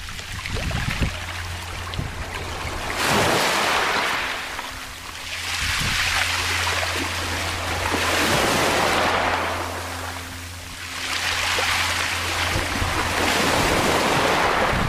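Small Baltic Sea waves washing in over a pebble beach and draining back through the stones, the rush of water rising and falling in about four swells. A steady low hum runs underneath from about a second in until near the end.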